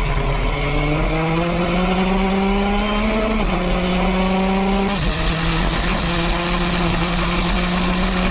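Open-wheel single-seater race car engine at full throttle, heard from the cockpit. The revs climb steadily and fall sharply at an upshift, then climb and fall again at the next gear, and it runs on high in the higher gear.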